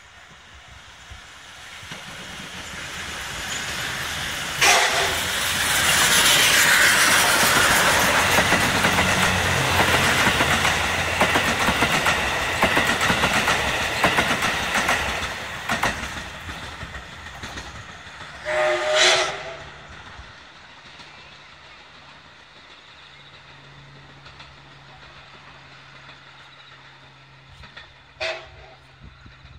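The D51-200, a 2-8-2 steam locomotive, passes hauling passenger coaches: the noise of locomotive and coaches on the rails builds, peaks as the train goes by and fades as it pulls away. Its steam whistle sounds briefly as it passes, again in a loud blast of about a second about twenty seconds in, and once more, shorter, near the end.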